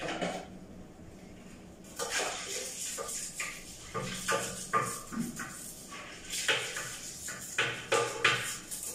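Toilet brush scrubbing the inside of a ceramic toilet bowl: a run of irregular scraping strokes that starts about two seconds in.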